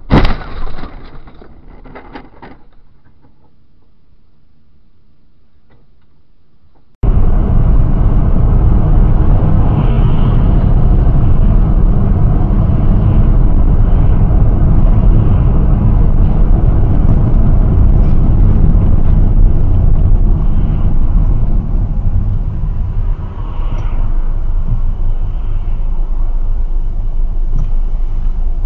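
A car collision impact right at the start, dying away over a couple of seconds. From about seven seconds in, loud steady road and wind rumble heard from inside a car driving on a highway, easing slightly in the last few seconds as the car slows.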